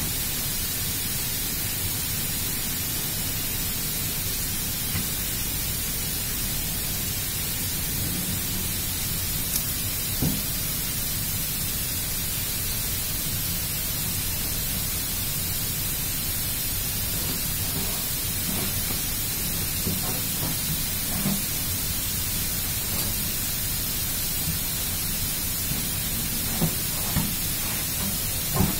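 A steady hiss of background noise, with a few faint clicks of a hex key working the cover bolts of a small gear-type pneumatic actuator, several of them near the end.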